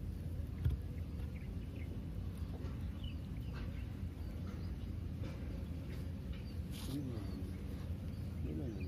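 Open-air ambience by a fishpond: a steady low background rumble with faint, scattered bird chirps and one brief thump just under a second in.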